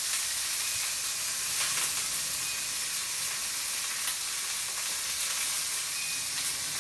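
Two fish slices pan-frying in hot oil: a steady sizzle with occasional pops and crackles, one sharp pop about four seconds in.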